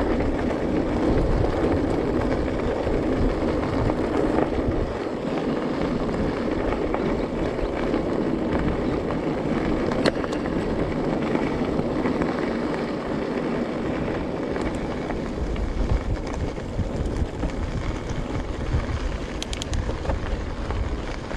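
E-bike tyres rolling over a gravel track with a steady crunch and rumble, with wind on the microphone. A single sharp click about halfway through.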